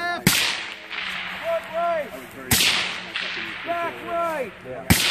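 Three rifle shots from a 10.5-inch short-barrelled 5.56 rifle firing Black Hills 77-grain OTM, spaced about two and a half seconds apart at a steady aimed pace. Each shot is a sharp crack followed by a trailing hiss of echo.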